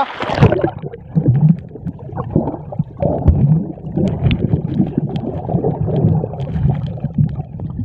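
Muffled water churning and gurgling around a camera held underwater, with scattered faint clicks and crackles. A brief splash comes right at the start as it goes under.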